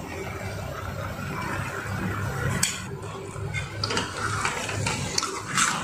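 Thick spiced yogurt being scraped with a spoon out of a bowl into a kadai of vegetables, the spoon clinking against the bowl and pan a few times, over a steady low hum.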